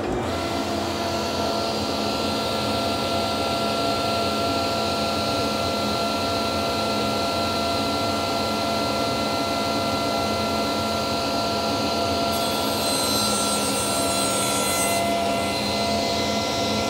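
Table saw and shop dust collector running together with a steady whine and hum. About twelve seconds in, the blade crosscuts the end of an oak board, adding a higher-pitched cutting hiss for about three seconds before settling back to the free-running whine.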